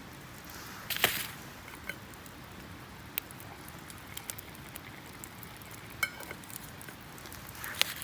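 Campfire crackling, with scattered small pops and clicks over a steady hiss. A brief, louder noisy burst comes about a second in and another near the end.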